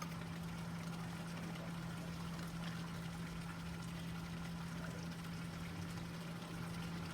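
Water running steadily, with a steady low hum throughout.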